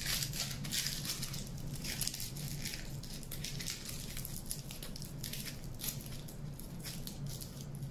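Aluminium foil being crumpled and squeezed by hand onto a wire sculpture armature: an irregular crinkling, busiest in the first few seconds and lighter after.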